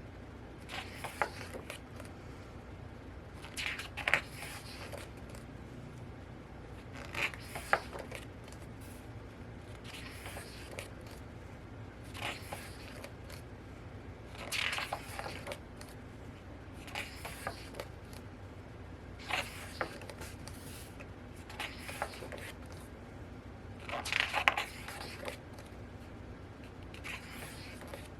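Pages of a thick photobook being turned one after another, a short papery swish every two to three seconds.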